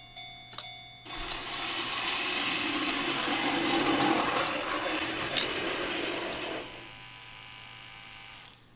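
A model railroad crossing signal ringing with regular dings. About a second in, an O-gauge model train runs over the crossing: a loud mechanical rattle of wheels on track for about five seconds, then a quieter running sound that stops with a sharp click near the end.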